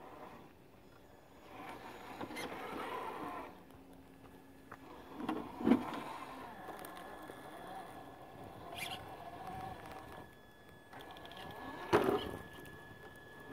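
Traxxas TRX-4 scale RC crawler's 21T Titan electric motor and geared drivetrain whining faintly as the truck crawls over rock, with a loud knock about halfway through and another near the end.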